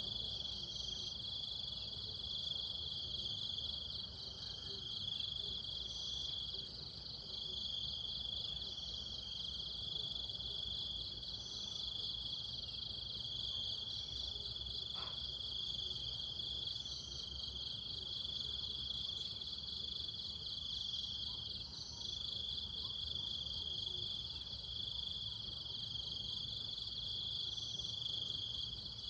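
Steady chorus of insects trilling, several high, continuous layers sounding together, some of them pulsing rapidly.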